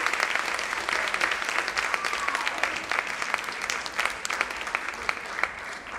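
Audience applauding: dense, steady clapping from many hands that slowly thins and fades toward the end.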